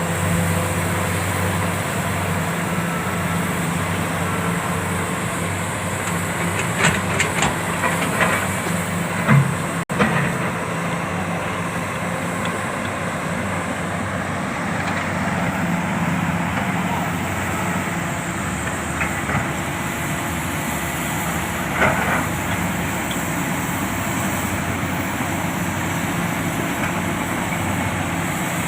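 Komatsu PC400 hydraulic excavator's diesel engine running steadily while it works, with a few short clanks and knocks about seven to nine seconds in and again about twenty-two seconds in.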